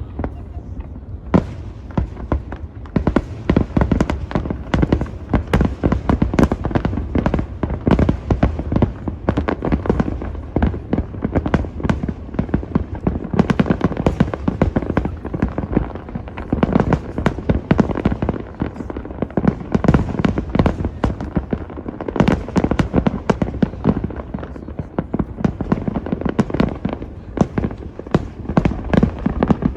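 Fireworks display going off without a break: aerial shells bursting in quick, overlapping bangs and booms, many each second, with crackling between them.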